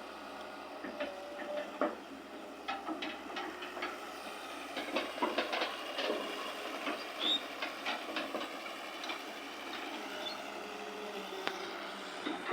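Excavator working: a steady machine noise with many irregular metallic clanks and knocks, thickest in the middle.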